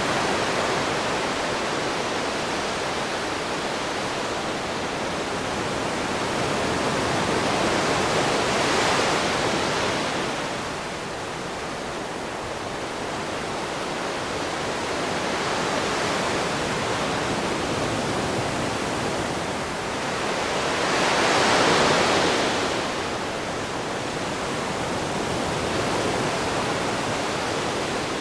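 Ocean waves washing onto a shore: a steady hiss of surf that swells and eases every several seconds, with the biggest waves breaking about a third of the way in and again about three quarters through.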